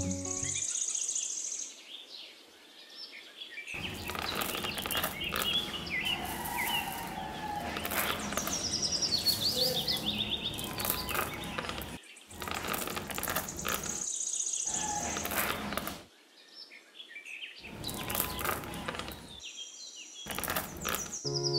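Birds chirping over a steady rush of water running from a small pipe into a cement trough. The sound breaks off abruptly several times.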